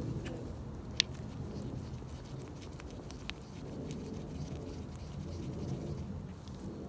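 Wooden mixing stick stirring and scraping two-part epoxy in a small plastic cup: a faint scratchy sound, with a sharp tick about a second in and another around three seconds.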